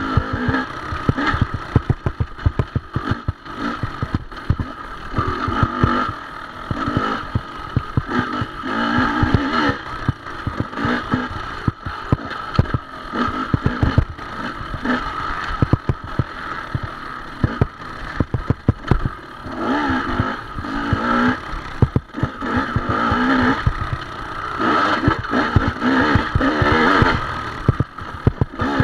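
Dirt bike engine revving up and down in short throttle bursts as the bike is ridden hard along a rough trail, with a steady clatter of knocks and jolts from the bike bouncing over rocks and roots.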